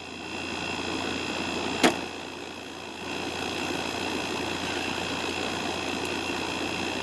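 A 2017 Kool King 5000 BTU window air conditioner running, its compressor and condenser fan giving a steady hum with a sharp click about two seconds in. The owner describes the condenser coil as dirty and damaged and not pushing as much air through.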